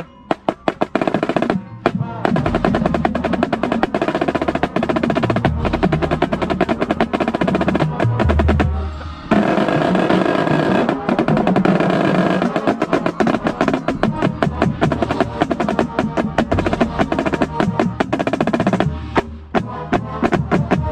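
Marching drumline playing a fast passage: snare drums with rolls over low, pitched marching bass drums, heard up close from the snare line. A brief break comes about nine seconds in, and the passage ends in a few separate hits.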